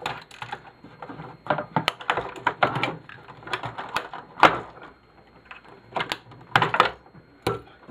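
Hand tools clicking and scraping on the small metal parts of a turntable mechanism while a snap ring is worked loose: a string of irregular sharp clicks and short scrapes, the loudest about halfway through.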